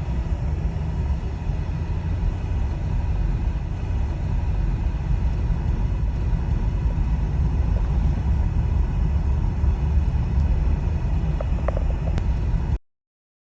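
Steady low rumble of a car driving, cutting off suddenly near the end.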